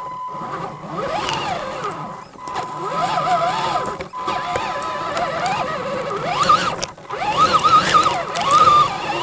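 RC truck's electric drive motor and gears whining close up, the pitch rising and falling as the throttle is worked, with occasional clicks and knocks as the truck climbs over branches.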